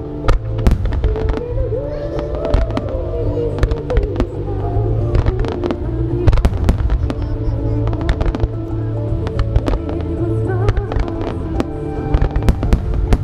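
Starmine fireworks display: many shells and mines bursting in quick succession with sharp bangs, over music.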